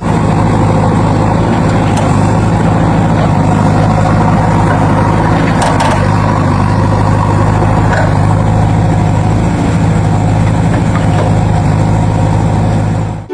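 Heavy vehicle engine running steadily at idle, a low even hum that does not rise or fall.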